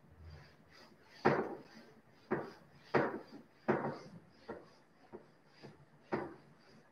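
A board duster wiping a whiteboard clean in about eight quick rubbing strokes, each starting sharply and fading fast, the loudest about a second in and near the middle.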